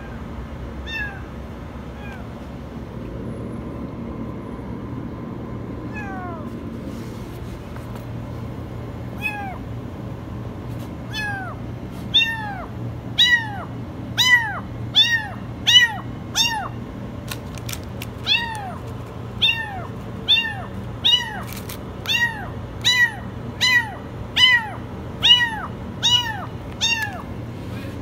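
Kitten meowing very high, each short meow rising then falling. A few scattered calls come first, then from about twelve seconds in a quick, steady run of meows, roughly one a second, over a faint steady low hum.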